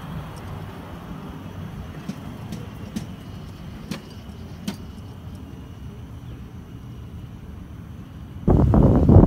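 A 7.25 inch gauge miniature shunting locomotive running along the track and moving away, a steady low rumble with a few sharp clicks. About eight and a half seconds in, a sudden louder burst of rough noise takes over.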